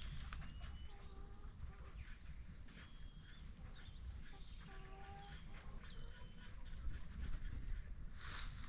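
Insects droning in two steady high tones, with short bird calls scattered through, the clearest about a second in and again about five seconds in, over a low rumble.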